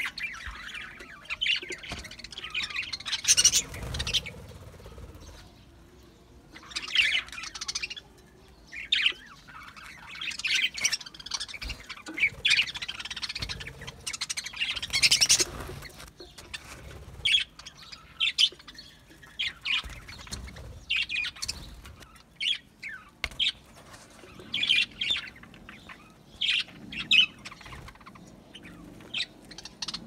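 A flock of budgerigars chirping and chattering, many short high calls overlapping in irregular bursts, with a few louder outbursts.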